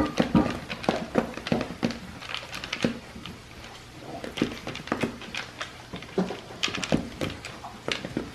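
A dog eating dry kibble from a plastic slow-feeder bowl: irregular crunching and clicking as the kibble is chewed and nosed against the bowl's plastic ridges.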